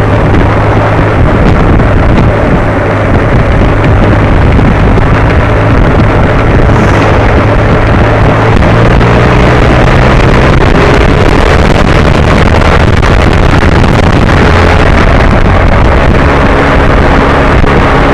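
Motorcycle engine running steadily at road speed, buried in loud wind rush on the microphone.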